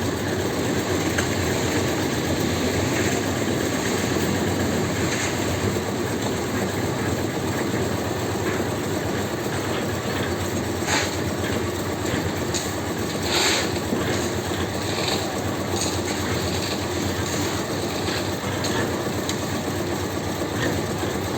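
An engine or machine running steadily with a low hum, and a few short knocks about halfway through.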